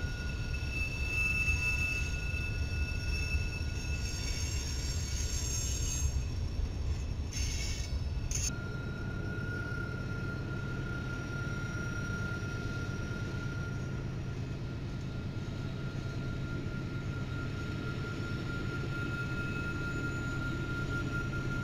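Freight train with diesel locomotives rolling through a sharp curve: a low, steady rumble of engines and cars under a continuous high-pitched wheel flange squeal. The sound breaks off briefly about eight seconds in and then carries on.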